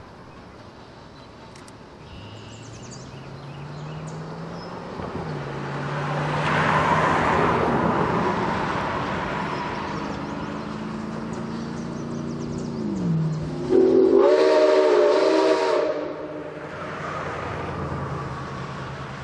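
Nickel Plate Road 765, a 2-8-4 Berkshire steam locomotive, working toward the listener: its exhaust and running noise swell as it nears, over a low steady hum. About fourteen seconds in comes one loud blast of about two seconds on its steam whistle, the loudest sound.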